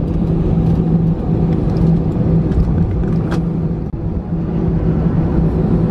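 Airbus A320-214's CFM56 engines idling while the jet taxis after landing, heard inside the cabin: a steady low rumble with a droning hum. Light rattles run through it, with a sharper click about three seconds in.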